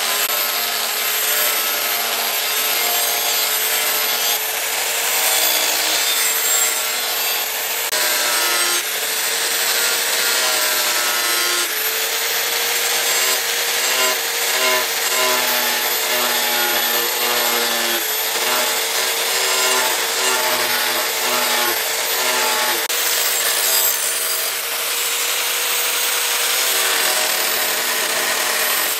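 Electric angle grinder running with an abrasive disc pressed against a spring-steel knife blade: a steady motor whine under the hiss of the disc grinding the steel, shifting slightly a few times.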